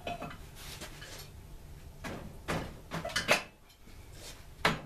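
Metal clanks and scrapes from a muffler being pushed back onto a small engine's exhaust by hand. There are a handful of sharp knocks, the loudest a little over three seconds in.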